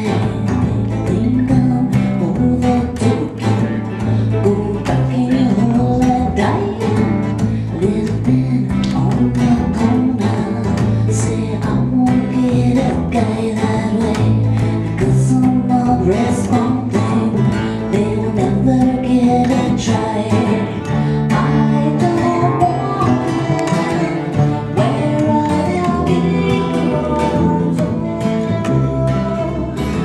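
Live acoustic band music: guitar, mandolin and bass playing a tune together, with plucked notes over a stepping bass line.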